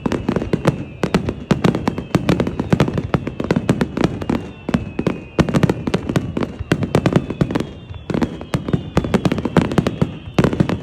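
Fireworks going off in a rapid, dense barrage of bangs and crackles, many per second without a break, with faint high whistles slowly falling in pitch.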